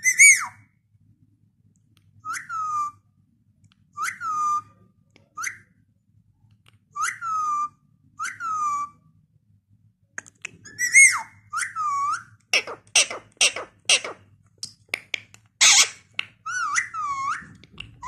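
Indian ringneck parakeet giving short whistled calls that fall in pitch, about one every second and a half. About ten seconds in, the calls come faster, mixed with rapid clicking and one loud harsh squawk.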